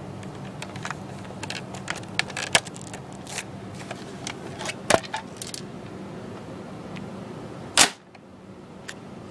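Plastic clicks and clacks from a Nerf blaster fitted with a homemade CPVC breech being handled, several each second for the first few seconds, then one much louder short pop near the end.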